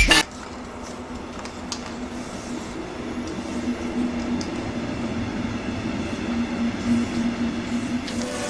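A train running on rails: a steady rumble with a low hum and a few faint clicks.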